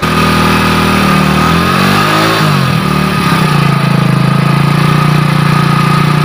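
An engine running loudly and continuously. Its pitch shifts up and down, like revving, about one to three seconds in, then it holds at a steady pitch.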